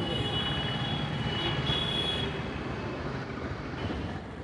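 Busy street traffic: a steady rumble of passing motorbikes, scooters and auto-rickshaws, with a thin high tone over it for the first couple of seconds.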